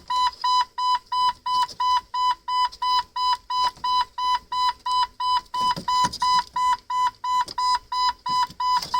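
1997 Jeep TJ's warning chime beeping steadily, a high electronic beep repeating about two and a half times a second.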